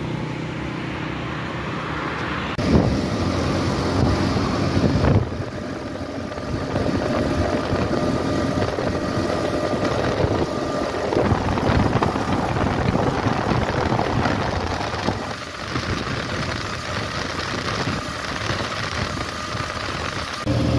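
A road vehicle under way, heard from on board: a steady engine hum for the first couple of seconds, then even road and wind noise while driving, with two louder rushes about 3 and 5 seconds in; the engine hum comes back near the end.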